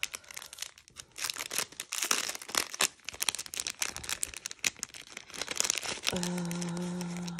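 Clear cellophane packet crinkling and crackling as it is pulled open and handled, in a fast, dense run of crackles. Near the end a steady hum holds for about a second.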